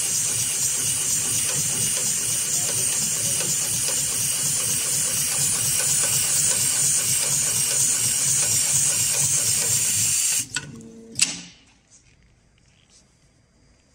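Heavy-duty automatic rope sewing machine stitching a climbing rope: rapid, continuous needle strokes under a steady hiss. About ten seconds in it stops suddenly, followed by a few mechanical clicks and knocks, then near quiet.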